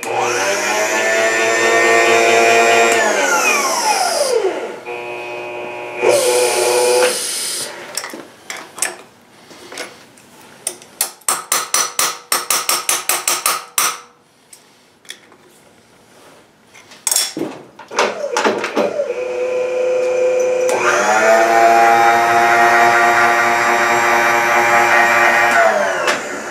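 Bridgeport mill's table power feed motor whining as it drives the table along, its pitch falling as it slows to a stop; it runs again later, rising as it starts and falling as it stops. In between comes a quick run of light taps and clicks.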